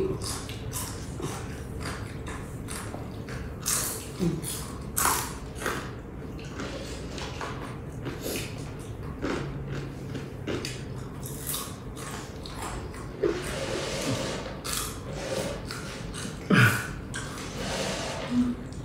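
Chewing and crunching of crispy fried street snacks close to the microphone: irregular crisp crunches and mouth sounds, a few of them louder.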